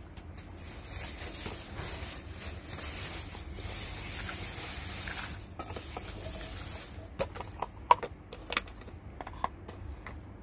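Thin plastic bag crinkling and rustling as it is pulled off a rice cooker's inner pot, followed in the second half by several short sharp clacks and knocks as the plastic power cord and wrapped accessories are handled and lifted out.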